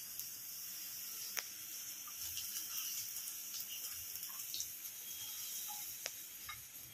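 Faint clinks and scrapes of a metal spoon on a small frying pan as fried shallots and curry leaves are pushed out into a fish curry, a few sharp ticks among them, over a faint steady hiss.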